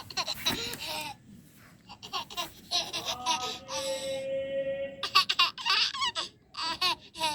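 High-pitched laughing and babbling like a baby's, in short bursts, with one longer held note about four seconds in.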